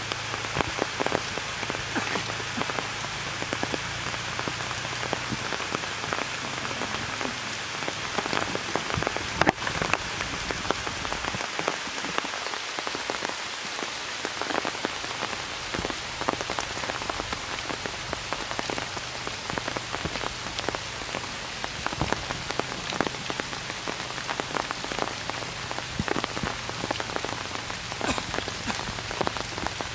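Steady rain falling on foliage and pond water, a continuous hiss dotted with the taps of single drops, with one sharper tap about ten seconds in.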